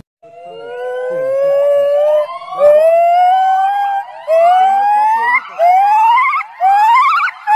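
Male white-cheeked gibbon calling: a series of rising whoops, the first long and low, each following one shorter and higher, coming faster and faster.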